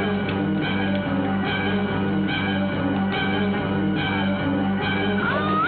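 Rock-style film score music with guitar over a steady held bass note, its pattern repeating about every second, with a sliding high tone near the end.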